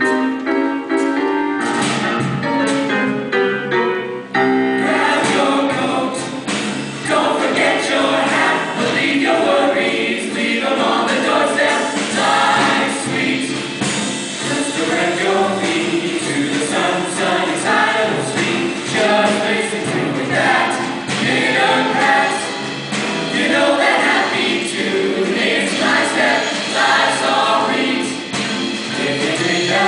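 Mixed choir of boys and girls singing together into handheld microphones, amplified through the stage sound system. A piano is heard under the voices in the first few seconds.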